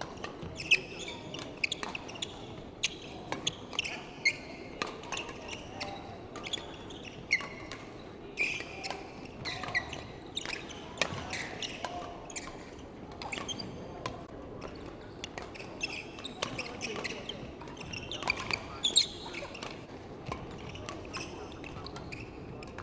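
Badminton rallies: rackets striking the shuttlecock with sharp, irregularly spaced pops, and sports shoes squeaking briefly on the wooden court floor, with the reverberation of a large indoor hall.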